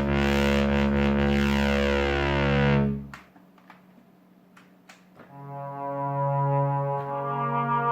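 Moog Memorymoog six-voice analog polyphonic synthesizer holding a full chord that dies away about three seconds in. A couple of seconds of near quiet with a few faint clicks follow, then a chord on a new preset swells in and holds.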